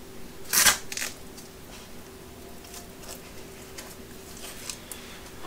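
Leather welding gloves being handled: a short, loud scraping rip about half a second in and a smaller one just after, then faint rustles and light ticks.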